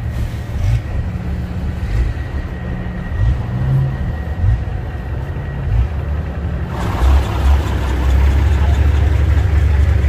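Semi-truck diesel engines idling with a low, steady rumble; about seven seconds in, a nearby engine gets louder and stays louder.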